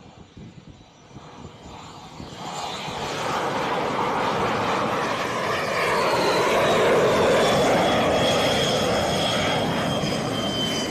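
Jet engine of an X-47B unmanned aircraft landing on a carrier deck. The engine noise swells from about two seconds in to a loud peak around two-thirds of the way through. Over it, a high whine falls steadily in pitch.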